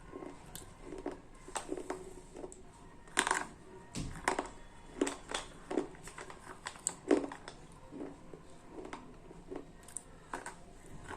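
Slate pencils being bitten and chewed: sharp, dry crunches and cracks at irregular intervals, a few much louder bites among them.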